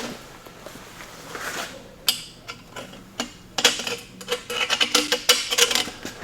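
Metal tools and a steel tube being handled on a workbench: scattered clicks and knocks, then a quick run of metallic clinking and rattling from about halfway in.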